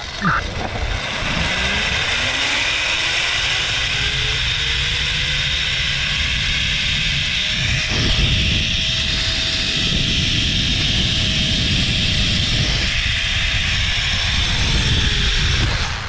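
Zip line trolley's pulleys running along the steel cable at speed, over a loud steady rushing noise. A whine from the trolley rises in pitch over the first half of the ride, then sinks gradually toward the end as it slows.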